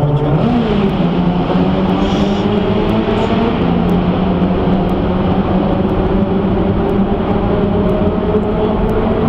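Car engine and tyre noise heard from inside a car driving through a road tunnel. The engine note rises briefly about half a second in, then holds steady over a constant road roar.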